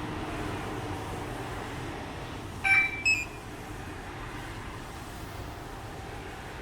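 Two quick electronic beeps close together about three seconds in, the second a little higher, from an Easycar E9 remote-start alarm system, over a steady low hum.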